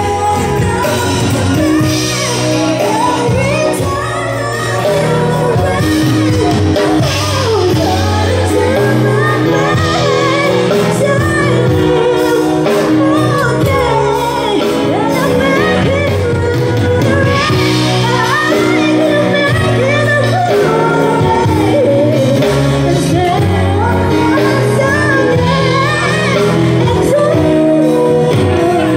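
Live pop band playing, with a female singer's lead vocal over electric guitar, bass, keyboard and drums, heard through a club's PA with room echo.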